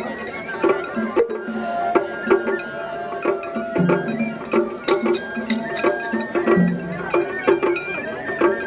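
Music with a steady beat of short struck percussion notes, about two a second, and short pitched notes over it.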